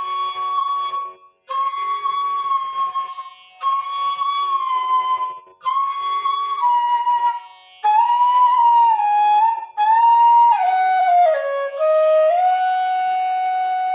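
F sharp bass bamboo flute (bansuri) playing sustained notes in short phrases with breath gaps between them, stepping down to lower notes in the second half, over a faint tanpura drone tuned to F sharp.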